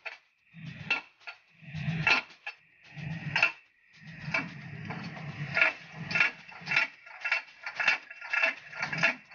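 A steel bar rammed again and again into the pin bore of a hydraulic breaker's steel mounting bracket, metal clanking on metal with a short ring after each strike. The bar is driving out the mounting pin to free the breaker from the excavator arm. The strikes come a second or so apart at first, then about two a second from the middle on.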